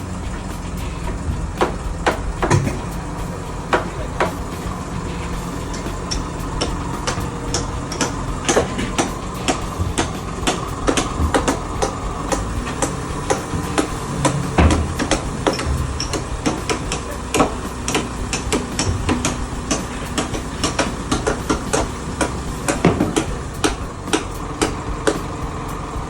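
Irregular hammer blows, many sharp knocks a second apart or closer, over the steady idling engine of a truck-mounted crane.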